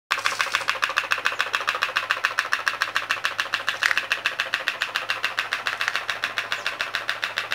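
Small pop-pop (putt-putt) toy steam boat running, its flash-steam engine making a rapid, even popping of about nine pops a second.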